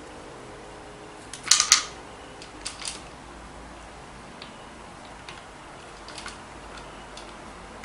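A few sharp hard clacks and clicks of a mixer drill's parts being handled: a loud double clack about a second and a half in, a lighter pair about a second later, and another near the end.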